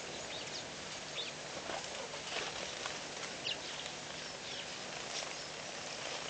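Small birds chirping and whistling in short, scattered calls over a steady outdoor hiss.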